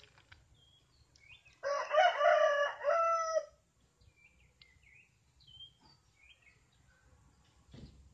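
A rooster crowing once, a single drawn-out call of about two seconds starting a second and a half in. Faint short chirps of small birds come and go around it.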